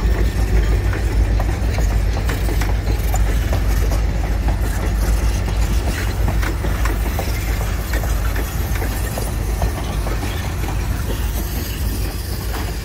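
Reading Blue Mountain and Northern passenger coaches rolling slowly past, a steady low rumble with scattered clicks and clanks from the wheels and running gear.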